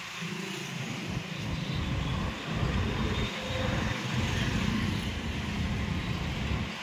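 Low rumble of road traffic on a bridge, with wind buffeting the microphone, swelling through the middle.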